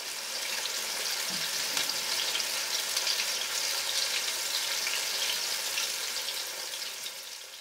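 Flour-dredged zander pieces frying in hot oil in a stainless steel pot: a steady, dense crackling sizzle that trails off near the end.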